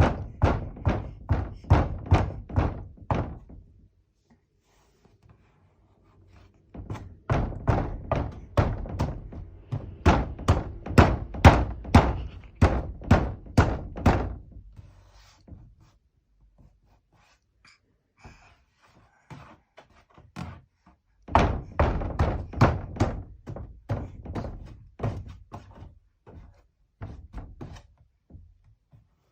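Knocking on a door: three long bouts of rapid, loud knocks, about two to three a second, with pauses of a few seconds between them, the last bout trailing off into softer knocks near the end.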